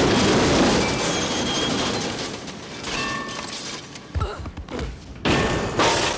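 Action sound effects from a film soundtrack: a loud rushing noise that dies down over about two seconds, then a few heavy thuds and crashes about four to six seconds in.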